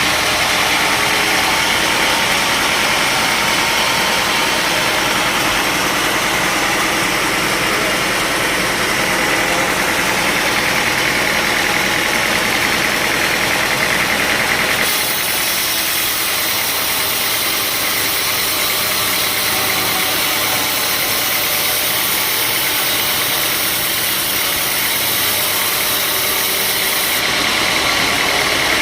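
Sawmill machinery running with a steady engine-like drone. About halfway through, the sound abruptly turns to a brighter hiss with less low rumble, and it switches back shortly before the end.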